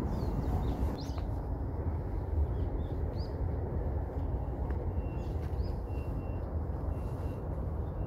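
Outdoor ambience: a steady low rumble, with a small bird chirping several times.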